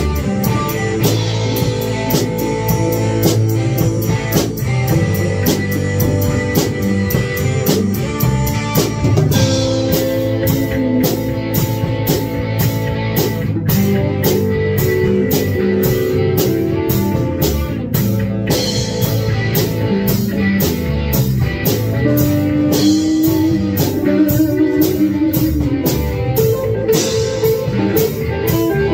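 Rock jam: electric guitar played over a drum kit, with a fast, steady cymbal beat running throughout.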